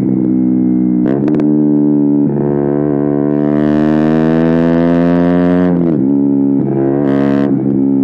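KTM Duke 125's single-cylinder engine running hard through an aftermarket Akrapovic exhaust, its note dipping briefly with quick gear changes about a second in and again a little after two seconds. It then climbs steadily for about three seconds before dropping sharply near six seconds, with another short dip about a second later.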